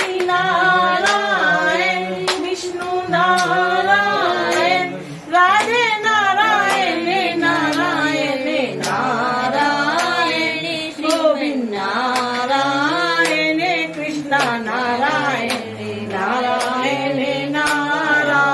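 Voices singing a Hindu devotional bhajan, a Narayan and Krishna name chant, kept to a steady beat of hand claps.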